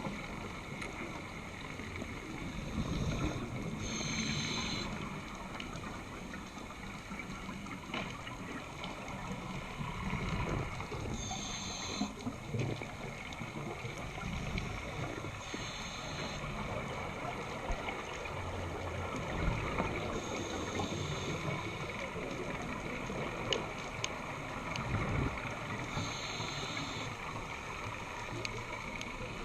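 Scuba diver breathing through a regulator, heard underwater: a short hiss or bubbling breath recurs about every four to five seconds over a steady low rumble of water.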